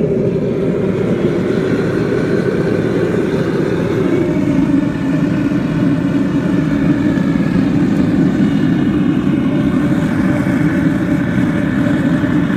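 Gas burner of a melting furnace running with a steady roar, its pitch settling slightly lower about four and a half seconds in.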